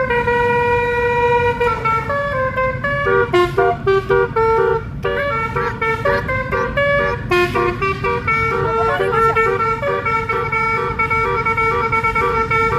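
Basuri telolet horn, a multi-trumpet musical air horn on an Indonesian bus or truck, honking a tune of short and held notes that step up and down in pitch, over a low rumble.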